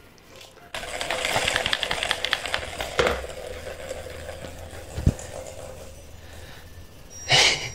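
Plastic balls rolling and rattling round the track of a three-tier plastic cat ball-track toy: a fast clatter of small clicks starting about a second in, ending in a sharper click about three seconds in, with a dull thump a couple of seconds later.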